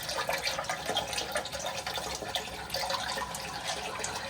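Toilet tank refilling through its fill valve: a noisy, steady rush and splash of water into the tank while the water level is still below the refill hose.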